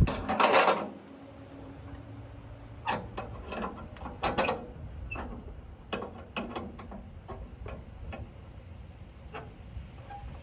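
A sharp knock, then a short rustling clatter, followed by scattered light clicks and taps: the handling noise of someone working around the car.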